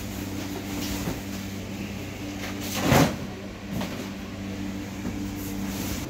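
A steady low electrical or mechanical hum, broken by one loud, brief knock or clatter about three seconds in and a smaller one just under a second later.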